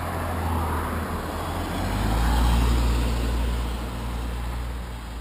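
A motor vehicle driving past on the road, its low engine hum and tyre noise building to a peak about halfway through and then fading away.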